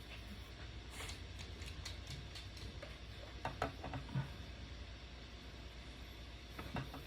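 Faint clicks and light taps of an AR-15 bolt carrier group being handled while it is oiled: a few about a second in, a small cluster around three and a half to four seconds, and one near the end, over a low steady hum.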